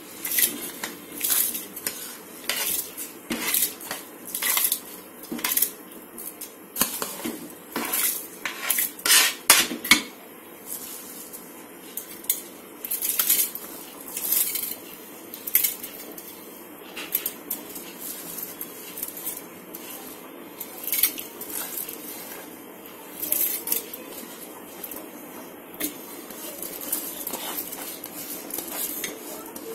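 Metal spoon clinking and scraping against a bowl and the rim of a metal cooking pot as rice is spooned into boiling biryani water. The clinks come quickly through the first ten seconds or so, then more sparsely.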